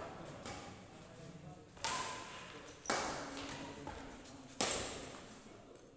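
Badminton rackets striking a shuttlecock three times in a rally, each hit a sharp crack with a short echo. The hits fall about a second apart, then a second and a half apart.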